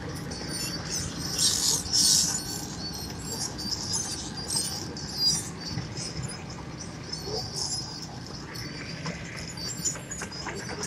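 Wirtgen W 200 asphalt cold milling machine working: a steady engine drone under many short high-pitched squeaks and crackles, with a louder hissing burst about two seconds in.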